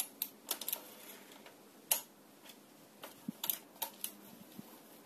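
Irregular light clicks and ticks, about a dozen, scattered over a faint steady background, the sharpest a little under two seconds in.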